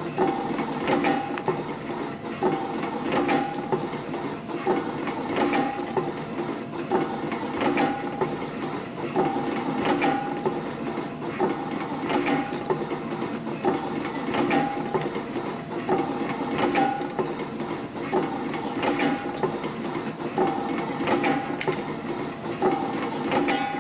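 CNC wire bending machine running: a steady motor whine with clicks of the forming tools, rising and falling in a repeating cycle every second or two.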